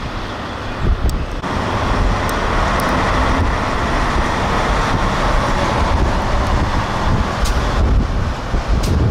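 Strong wind buffeting the microphone in a snowstorm, with a low rumble and hiss of heavy trucks and traffic on the highway. A louder steady hiss sets in after about a second and a half.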